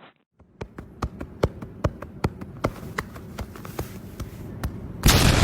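Irregular sharp taps and knocks, about two or three a second, then a sudden loud burst of noise near the end.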